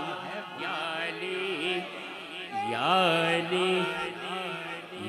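Male voice chanting a naat in long, bending melodic phrases without clear words, over a steady low drone.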